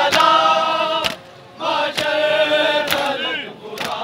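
A large crowd of men chanting in unison in long held phrases, with a short break about a second in. Sharp slaps or claps fall roughly once a second.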